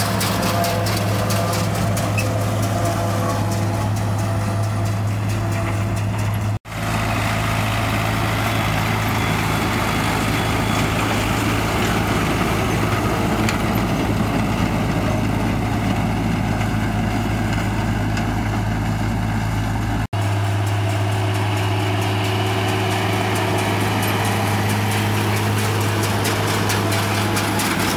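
International 1256 tractor engine running steadily at working speed, driving a New Holland 790 forage harvester as its hay pickup feeds cut hay into the chopper. About seven seconds in the sound cuts to a John Deere tractor pulling a New Holland Haybine mower-conditioner, a rougher, noisier machine sound with more low rumble, and about twenty seconds in it cuts back to the steady tractor hum.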